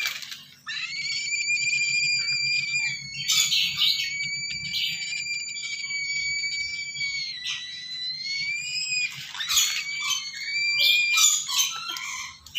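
Lesser sulphur-crested cockatoo chicks begging: long, steady, high-pitched calls held for several seconds, broken by harsh rasping squawks about three seconds in, around ten seconds and again near the end.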